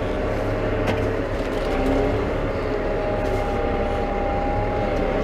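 New Holland T5 120 tractor's diesel engine running steadily while the tractor reverses slowly, with a steady whine over the rumble and a single click about a second in.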